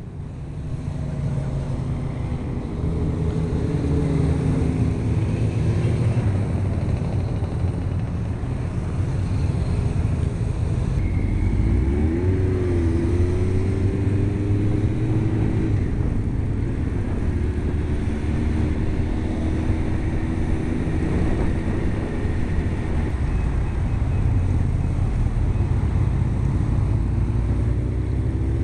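Motorcycle engines running while riding in a group, growing louder over the first few seconds. The engine note dips and climbs again about twelve seconds in, with other shifting engine tones through the rest.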